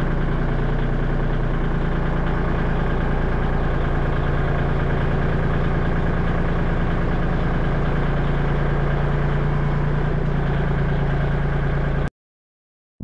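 Kubota L2501 tractor's three-cylinder diesel engine running steadily while the tractor handles a square hay bale on its front loader. The sound cuts off abruptly near the end.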